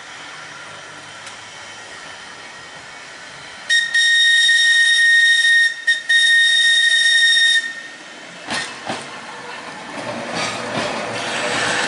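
Manx Electric Railway tram car 16 sounding its warning whistle as it nears a road crossing: two long, loud, high steady blasts with a brief break between them. Two knocks follow, then the tram's running noise grows as it draws near.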